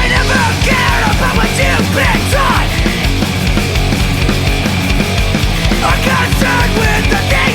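Loud, heavy, punk-metal style rock music: drum kit and distorted guitars driving a steady beat, with sliding notes over the top.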